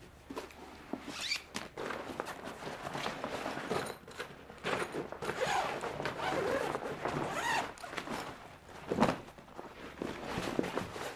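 Folding kayak's fabric hull skin being folded and handled: continuous rustling and scraping of heavy fabric, with a sharp knock about nine seconds in.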